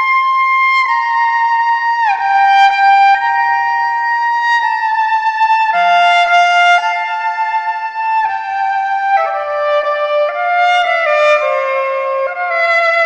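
Instrumental background music: a slow melody of held notes, each lasting about a second, with a second voice moving alongside it in the last few seconds.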